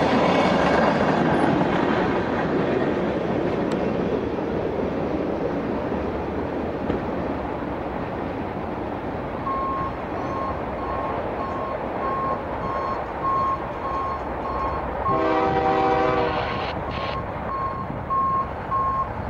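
BNSF diesel locomotive leading a coal train sounds its horn once, a chord of several tones lasting just over a second, about fifteen seconds in, over the sound of the oncoming train. A broad rumble fades over the first several seconds, and from about halfway a thin high beep repeats roughly every half second.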